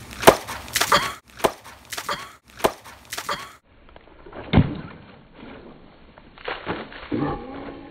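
A run of sharp knocks and clicks, then a single heavier thump about four and a half seconds in and a few softer knocks near the end.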